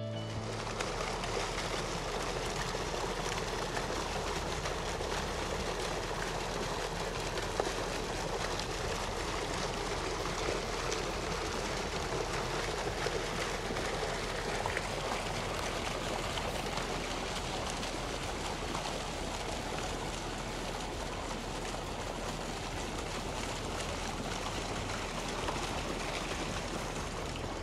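Water gushing from a large-diameter water-truck hose into a swimming pool, a steady rush and splash, with a steady low hum underneath.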